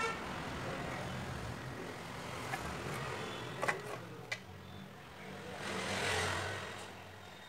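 Road traffic noise in the background, swelling as a vehicle passes about six seconds in, with a few light clicks in the middle.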